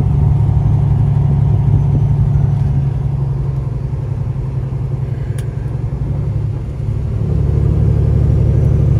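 Diesel engine of a Peterbilt 389 glider semi truck heard from inside the cab while driving, a steady low drone. About seven seconds in it dips briefly, then comes back louder.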